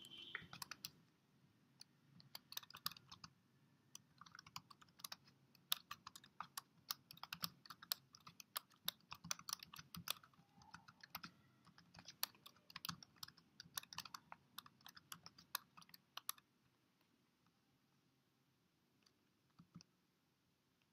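Quiet typing on a computer keyboard: a quick, uneven run of keystrokes for about fourteen seconds that then stops, with a couple of faint clicks near the end.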